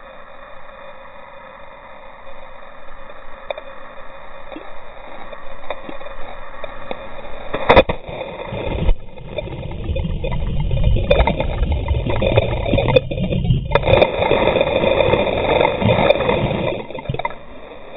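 Waterfall water rushing steadily. It swells louder and deeper from about halfway through, then eases near the end, with one sharp knock or splash about eight seconds in.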